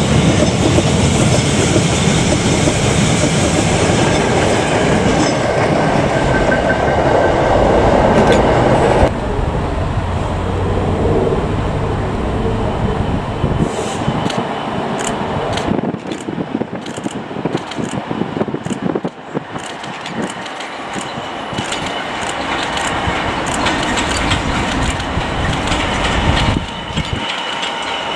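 Container flat wagons of a freight train rumbling and clattering past at close range. About nine seconds in this cuts to a Class 66 diesel locomotive with two more Class 66s behind it coming slowly across the yard's pointwork: the engines grow louder as they near, with a long run of clicks as the wheels cross rail joints and points, and a thin wheel squeal near the end.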